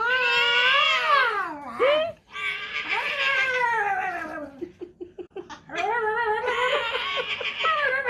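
Long, drawn-out cat-like yowls. The first rises and then slides down in pitch, the second slides downward, and a run of short chirps comes before a third long yowl begins about six seconds in.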